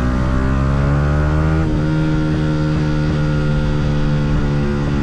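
Yamaha R125's single-cylinder four-stroke engine under way, its revs rising, then dropping sharply about a second and a half in, as at an upshift, and running fairly steady after that.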